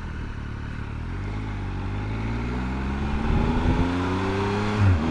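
Triumph Tiger's three-cylinder motorcycle engine accelerating, its note rising steadily through the second half, with a brief drop in revs near the end as the next gear goes in.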